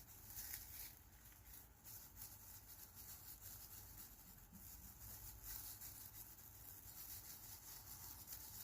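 Near silence, with faint soft rubbing and light ticks over a low hum.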